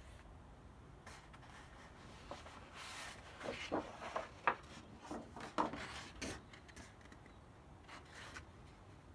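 Large paper prints being handled: sheets lifted and slid off a stack, rustling and scraping in a flurry of strokes through the middle, with a few lighter rustles before and after.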